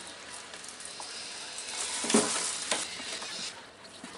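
Wire whisk stirring thick cake batter in a bowl as milk is worked in: a wet, scraping stir with a few faint knocks, quietening near the end.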